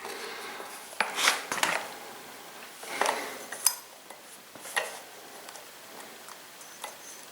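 Metal tools and chainsaw parts clinking and knocking as they are handled: about half a dozen separate clinks, one a little past the middle with a brief high ring.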